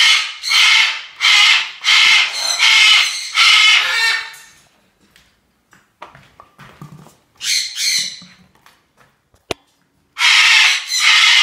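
Large parrot screaming: a run of harsh, loud squawks about two a second for the first four seconds or so, two shorter squawks about eight seconds in, a sharp click, then another long scream near the end.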